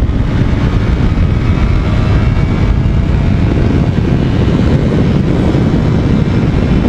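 Motorcycle engine running at road speed, with wind rushing over the microphone.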